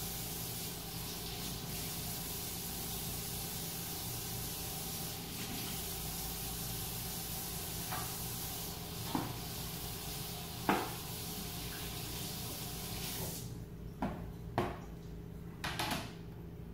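A steady hiss that cuts off about thirteen seconds in, with a few separate sharp knocks of a kitchen knife on a cutting board as roasted poblano peppers are cut into strips.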